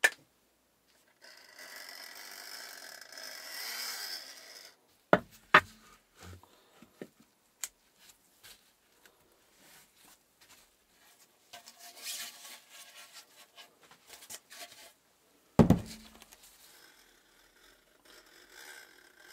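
Hard plastic 3D-printed mold pieces being handled on a workbench: scraping and rubbing as they are slid and pressed into place, with sharp knocks as pieces are set down, two about five seconds in and a louder one late on.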